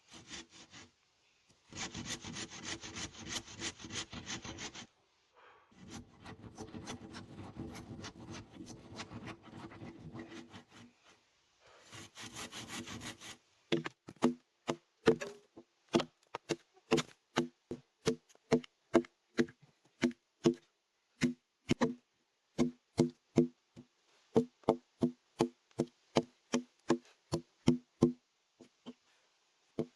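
A handsaw cutting a wooden board in three bouts of strokes. Then, from about halfway, a hammer drives nails into wood in a steady run of ringing blows, about two a second.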